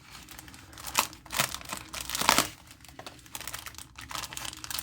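Craft-kit packaging crinkling and rustling as it is opened by hand, with a few sharper crackles about a second in and again near the middle.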